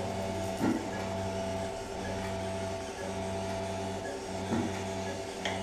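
Steady motor hum from arthroscopy equipment, dipping in a regular beat about once a second. A few soft knocks cut through, the loudest about a second in and others near the end.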